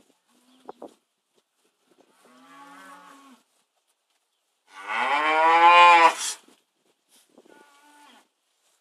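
Dairy cows mooing: a quieter moo about two seconds in, then a long, loud moo near the middle that rises a little in pitch, and a faint low call near the end.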